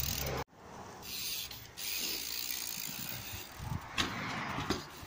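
Dirt jump bike rolling, its rear freewheel hub ticking as it coasts, with a sharp knock about four seconds in as the wheels meet the stone wall edge.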